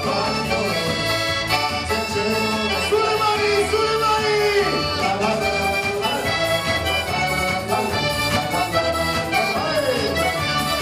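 Organetto (diatonic button accordion) playing lively Italian folk dance music, its bass and chord buttons keeping a steady beat under the melody, with a man singing into a microphone over it.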